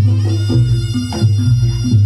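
Reog Ponorogo gamelan accompaniment: a deep drum beat and hand drums under a looping pattern of short pitched notes, with a sustained high reed-like tone above.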